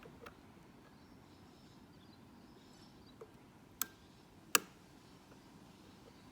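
Lock pick and tension wrench clicking on the pins inside a Mako padlock with serrated security pins, a few scattered light ticks and one sharper click about four and a half seconds in.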